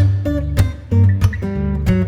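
Background music: an Afrobeat instrumental with strummed guitar over heavy bass notes and a regular beat.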